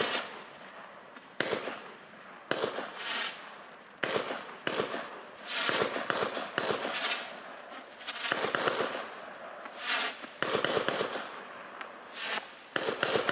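Evolution Fireworks Starlight (B112) firework cake firing shot after shot: more than a dozen sharp reports, about one every half second to a second with short lulls, each followed by a brief hiss as the white star bursts break.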